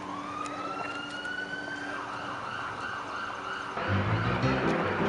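Police siren wailing, its pitch rising and then holding high. About four seconds in, loud music with a beat comes in over it.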